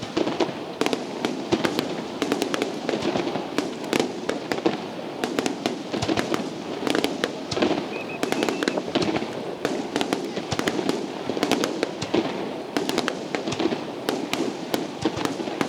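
Fireworks display in a dense barrage: many rapid, sharp bangs and crackles following one another without pause, over a continuous rumble.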